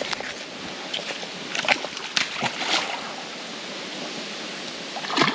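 A hooked fish splashing at the water's surface in several short bursts, mostly around two seconds in, over a steady hiss; louder splashing starts near the end as it is reeled toward the bank.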